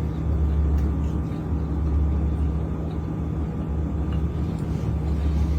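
A steady low hum of a running machine, with a deep rumble underneath.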